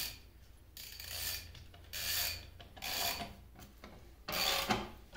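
A hand tool, likely a wrench or ratchet, is being worked in repeated strokes on a threaded leveling bolt of the lathe's cast-iron leg. Each stroke is a short rasp of metal on metal, about one a second.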